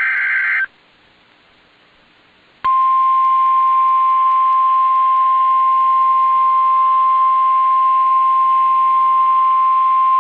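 The end of an Emergency Alert System SAME header data burst, then about two seconds of faint hiss, then the NOAA Weather Radio warning alarm: one loud, steady single-pitch tone that begins under three seconds in and holds, announcing a tornado emergency.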